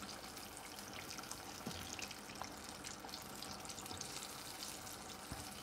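Battered fish deep-frying in hot oil in a pot: a faint, steady sizzle with fine crackles.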